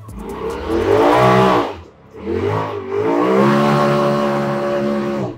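Side-by-side UTV engine revving up under acceleration, easing off about two seconds in, then climbing again and holding high revs until it stops abruptly near the end.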